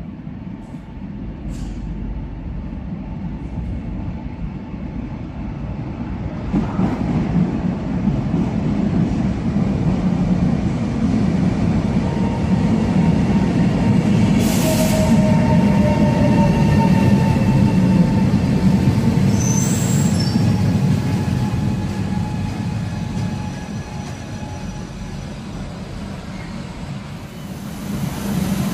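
An ETR 425 Jazz electric multiple unit arriving at an underground platform. Its rumble builds as it comes out of the tunnel, with a slowly falling whine as it brakes and a brief high squeal about twenty seconds in. The noise then eases as the train comes to a stop.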